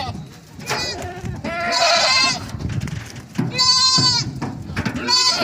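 Goats bleating, about four wavering calls in turn, the longest lasting nearly a second about two seconds in.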